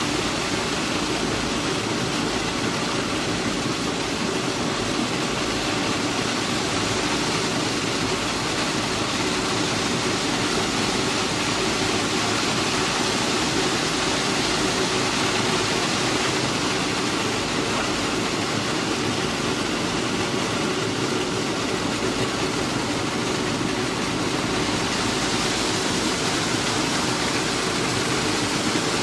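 Plasser & Theurer PM 1000 URM track renewal machine running: a steady, dense mechanical rush with a low hum under it, getting hissier near the end.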